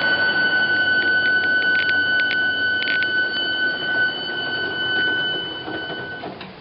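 Large industrial sanding machine running: a steady rushing noise with a high whine over it and a few light clicks about one to three seconds in. Near the end the whine stops and the noise dies away.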